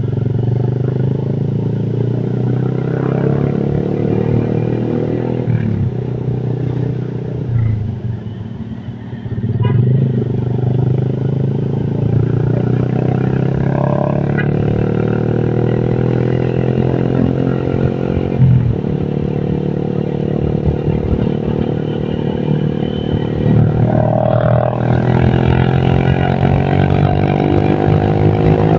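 Engine of a Honda Vario KZR scooter, tuned up with a 55 mm piston, running under way. Its pitch climbs slowly under throttle and drops away briefly several times as the throttle is eased and reopened.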